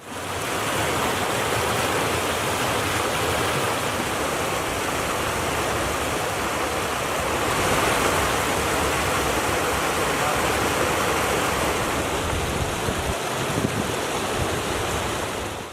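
Steady rushing of flowing water, fading in at the start and holding even throughout.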